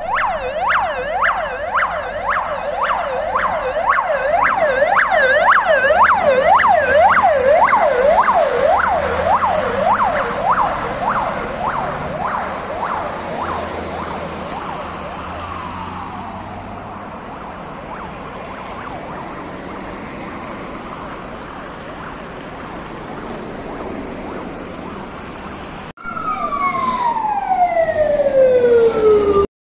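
Emergency vehicle sirens. A fast yelp warbles up and down about two or three times a second and fades away over the first half. After a cut, a siren winds down in one long falling glide near the end, over steady street traffic.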